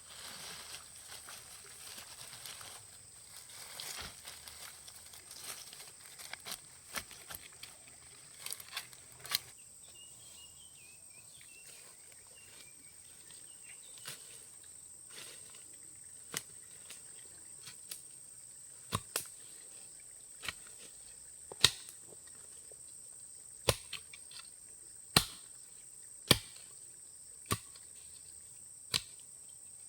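Sharp knocks, scattered at first, then louder and more regular in the second half at about one every second or so. Under them runs a steady high-pitched insect buzz.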